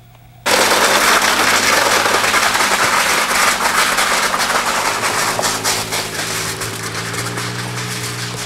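Car driving off on gravel with its engine running under a steady crunching and crackling of stones, as a VCR is dragged and scraped along behind it on its cord. The noise starts abruptly about half a second in and slowly grows quieter.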